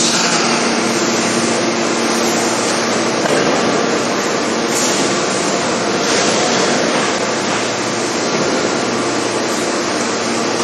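Forging machinery running: a loud, steady mechanical noise with a constant low hum and no separate hammer blows.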